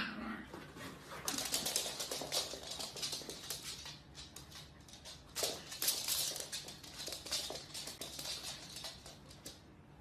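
A corgi barks once sharply at the start, then a long spell of irregular scratchy clicking and scuffling as the dogs scramble about and paw at each other on the floor, in two busy stretches.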